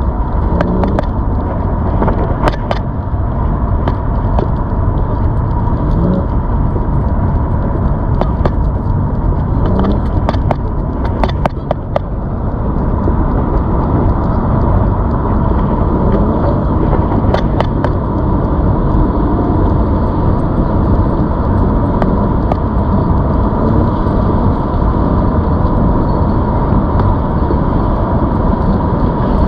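Steady rumbling noise of a ZOOZ electric bike being ridden, with a thin steady whine, and scattered rattling clicks in the first half.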